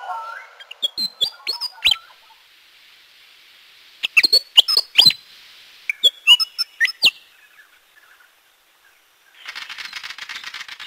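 Bird chirps: three clusters of short, sharp, quickly falling whistled notes a couple of seconds apart. Near the end a fast, even shaker-like rattle starts up.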